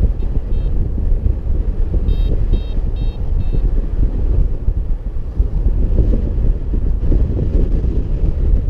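Airflow buffeting the microphone of a camera on a paraglider's risers in flight, a loud steady low rumble. Short high beeps sound in quick series, a couple right at the start and four more about two seconds in, the climb tone of a paragliding variometer.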